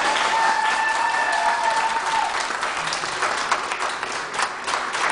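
Audience applauding, dense and steady, with one long high held note rising over the clapping during the first two seconds.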